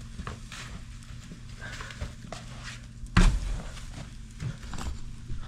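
Split firewood being loaded into a wood boiler's firebox: scattered knocks and clicks, with one louder thunk about three seconds in, over a steady low hum.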